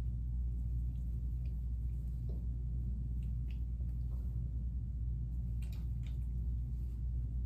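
Faint wet squishing of foamy cleanser being rubbed over the face with the fingertips, over a steady low hum.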